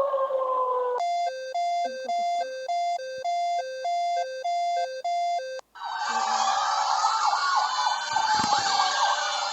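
Emergency alert alarm tones played one after another. A falling siren glide ends, then a two-pitch tone alternates about twice a second for roughly four and a half seconds. After a brief gap comes a dense jumble of many overlapping siren wails.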